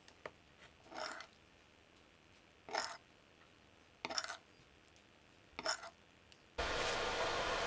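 Cooking sounds in a kitchen: five short handling noises about a second and a half apart, then near the end a sudden steady hiss that carries on.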